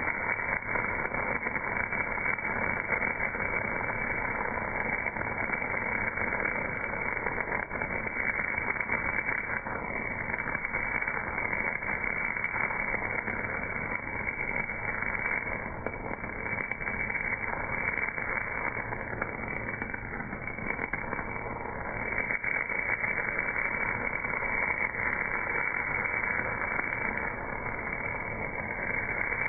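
MAG welding arc on a casting at 280 A: a steady, crackling hiss without a break.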